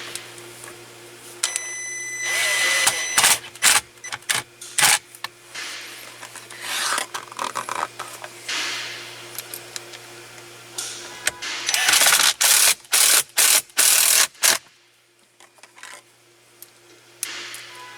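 Plastic steering-column trim panels being handled and pushed back into place: sharp clicks and snaps with bursts of scraping and rubbing, and a dense run of loud clicks about two-thirds of the way through.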